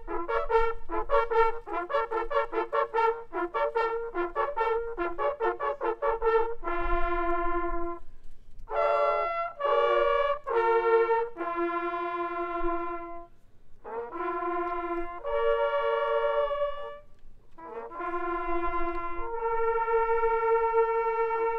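Several hunting horns played together, sounding the ceremonial calls over the laid-out game at the close of a driven hunt. A quick run of short repeated notes for about six seconds gives way to longer held notes in phrases with brief pauses, the last note held on.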